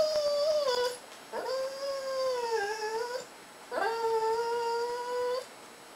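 Cocker spaniel giving three drawn-out, howl-like whines, each holding a steady pitch with a slight dip. This is its 'talking' trick of mimicking 'I love you'.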